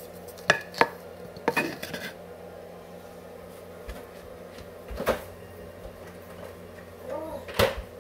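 Ceramic bowl knocking and clinking against the counter and cutting board: a handful of sharp, separate knocks with brief ringing, the loudest two within the first second.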